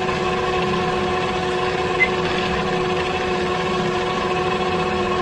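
Tractor-drawn dry fertilizer spreader running steadily, its conveyor and drive heard from close by as a steady hum with several held tones over a low rumble. A brief click about two seconds in.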